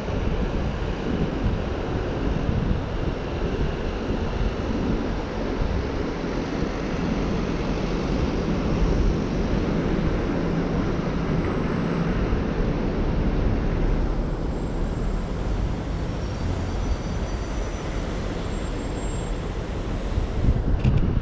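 Street traffic and wind on the microphone: a steady low rumble of passing vehicles mixed with wind noise. A short click comes near the end.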